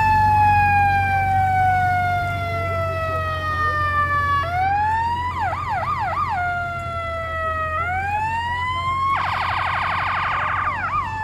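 Emergency vehicle's electronic siren cycling through its tones: a slow falling wail, a quick rise and a short warble about halfway, then another rise and a rapid fast-pulsing yelp near the end, over a low steady hum.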